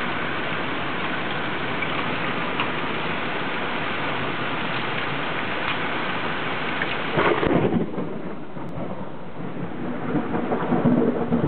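Heavy rain and hail falling with a steady hiss. About seven seconds in a loud clap of thunder breaks in, after which the downpour sounds duller and thunder rumbles, growing louder near the end.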